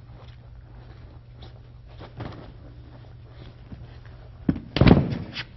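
A body being thrown onto a padded mat: a thud about four and a half seconds in, then a heavier thud just after, with softer scuffs and knocks of feet on the mat before.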